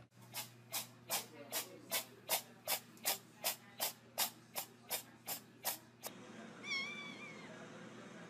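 A fast run of about fifteen short hiss-like bursts, evenly spaced at nearly three a second, stops suddenly; shortly after, a kitten gives one high meow with a wavering pitch.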